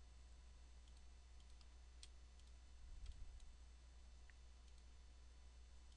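Near silence with a low steady hum, broken by a handful of faint, scattered computer mouse clicks.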